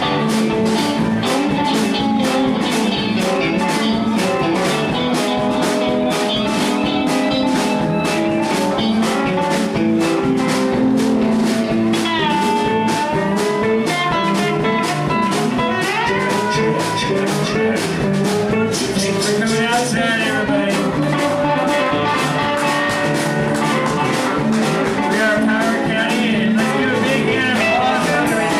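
Live band playing an instrumental blues jam: guitar leads over a steady beat, with notes bent and slid in pitch around the middle.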